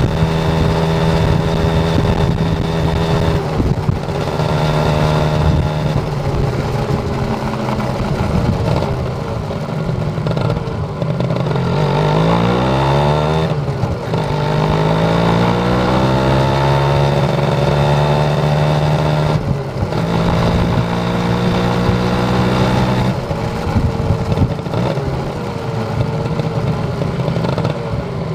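Kawasaki Ninja RR motorcycle engine running under way. The engine note holds steady, dips briefly several times, and swings down and climbs back up about 12 seconds in as the throttle changes.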